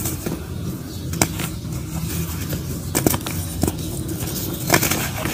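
Dry lumps of mud crumbled and crushed between bare hands in a tub of loose dirt, crunching and gritty, with about four sharp crackles as pieces snap. A steady low hum runs underneath.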